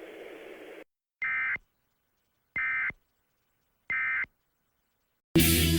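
Three short bursts of Emergency Alert System end-of-message data tones (the SAME digital squawk), each about half a second long and about a second apart, marking the end of the alert. A faint hiss comes before them, and music starts suddenly near the end.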